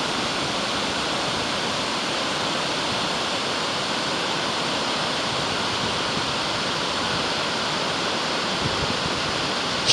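Waterfall pouring: a steady, even rush of falling water. A short knock comes right at the end.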